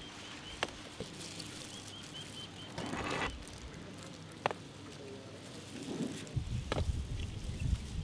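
Knives cutting and peeling rambutan skins: scattered sharp clicks and crackles, with a short rustling scrape about three seconds in. A bird chirps faintly in the first couple of seconds, and a low rumble comes in about six seconds in.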